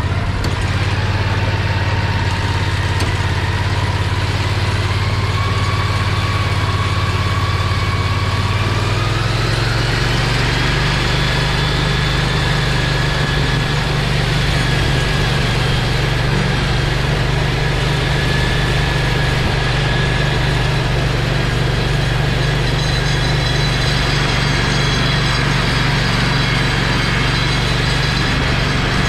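Predator 670 V-twin engine of a homemade golf-car-limo go-kart running steadily. About nine seconds in the engine speed rises and then holds at the higher speed, with a thin whine that rises along with it.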